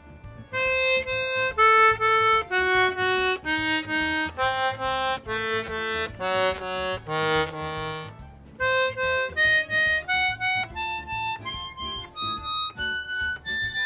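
Treble reeds of a chromatic button accordion sounded one note at a time in short runs, many notes played twice, then a quicker climbing run. This is a test of a reed block just refitted with new reed valves and not yet tuned.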